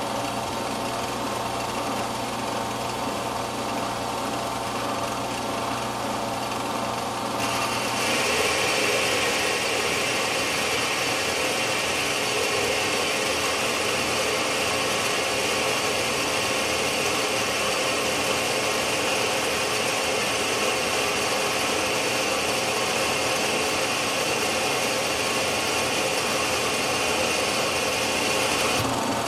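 Small metal lathe running steadily with its gear drive humming; about seven seconds in, a heavy roughing cut on a steel stud begins, adding a loud, steady hiss of the cutting tool shearing steel, which stops near the end.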